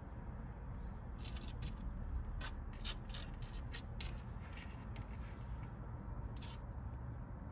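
British shorthair kitten licking and mouthing its sleeping mother cat's head and ear: a run of small, quick clicks from about a second in until near the end, over a low steady rumble.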